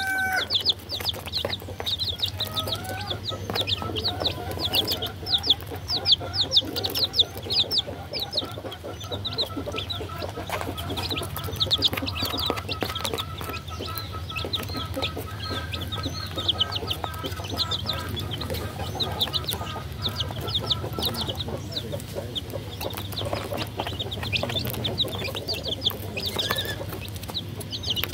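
Baby chicks peeping nonstop: many short, high chirps that fall in pitch, several a second, over a low steady hum.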